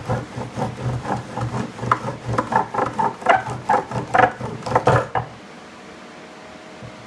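Bow drill in use: the wooden spindle grinds and squeaks in the fireboard as a stick bow is sawed back and forth, about three strokes a second, drilling to build up hot dust for an ember. The strokes grow louder, then stop suddenly about five seconds in, leaving a faint steady hum.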